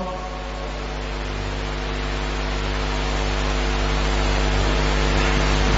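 Steady electrical hum with hiss from the sound system, slowly getting louder.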